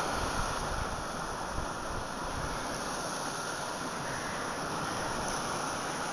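Surf breaking and washing on a rocky shore, a steady rushing noise, with wind buffeting the phone's microphone, most at the start.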